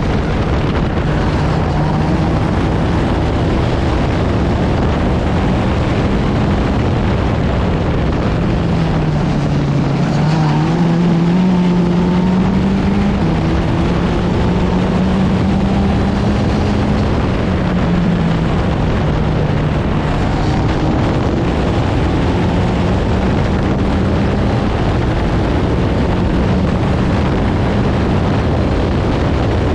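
Open-wheel formula race car engine at racing speed, heard from the cockpit under a dense rush of wind and tyre noise. The engine note rises and falls with throttle and gear changes, dipping about ten seconds in and climbing again.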